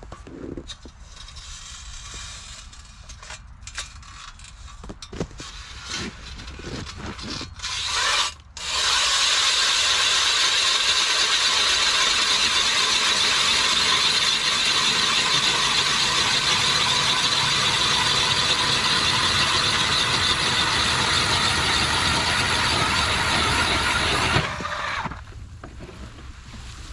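Handling clicks and knocks, then about nine seconds in a power ice auger starts and runs steadily as it bores a hole through lake ice, before stopping near the end.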